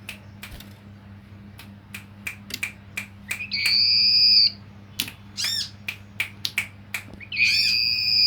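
Male common iora (cipow) calling: a string of sharp chip notes, a long held whistle about three and a half seconds in, a few quick downslurred notes just after the middle, and another long whistle near the end. A faint steady hum runs underneath.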